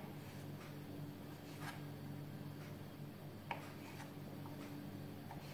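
A kitchen knife cutting canned mushrooms into quarters on a wooden cutting board: a few faint, scattered taps and scrapes of the blade on the board, over a low steady hum.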